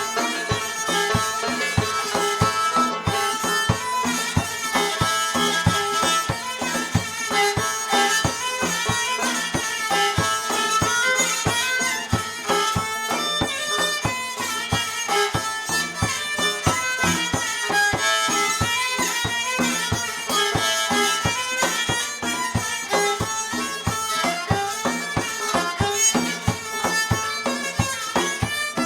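Live instrumental traditional music of Afghanistan and Tajikistan, a fast, even run of many short notes without singing.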